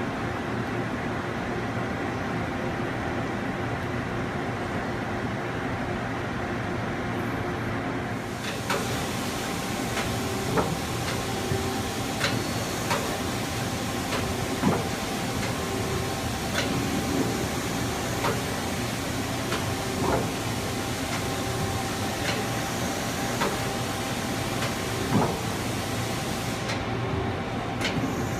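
A Cincinnati Milacron Cinturn CNC lathe running through its cycle with a steady hum. About eight seconds in, a hiss joins the hum and sharp clicks come every second or two.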